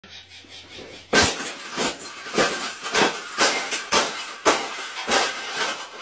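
A round wire bird cage being stomped and crushed underfoot: repeated metal crunching and clattering about twice a second, starting about a second in.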